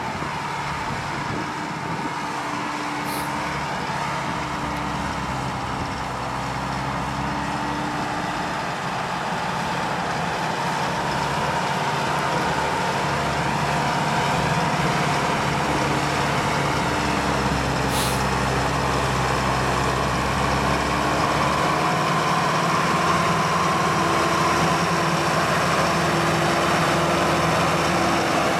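Large farm tractor's diesel engine running steadily under load as it pulls a mounted mouldboard plough through soil, slowly growing louder as it comes closer.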